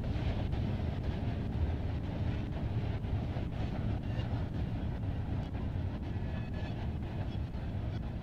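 Freight train rolling past: a steady low rumble with faint, irregular clicks.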